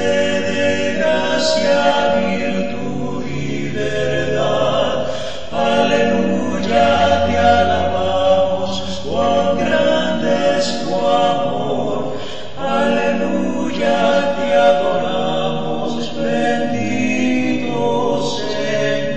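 Choir singing a Spanish hymn a cappella, in sustained chords with brief breaks between phrases.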